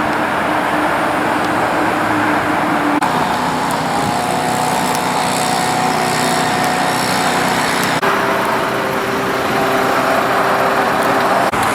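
Engine-driven machinery running steadily, its sound changing abruptly about three seconds in and again about eight seconds in.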